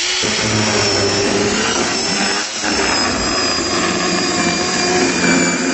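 Handheld electric power saw running steadily as it cuts through a cardboard box, with a brief dip about two and a half seconds in.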